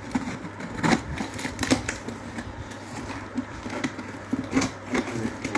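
Snap-off utility knife slicing through packing tape and cardboard on a box, a scratchy scraping broken by irregular sharp clicks and crackles as the flaps are worked open.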